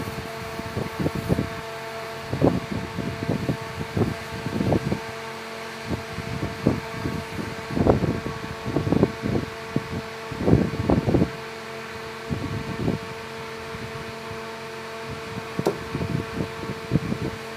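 A steady mechanical hum with several fixed pitches, under irregular dull thumps and scuffs that come in clusters, the loudest around the middle.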